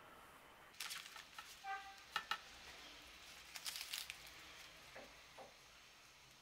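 Faint crinkling and rustling of baking paper and thin phyllo pastry sheets being folded by hand, in three short spells.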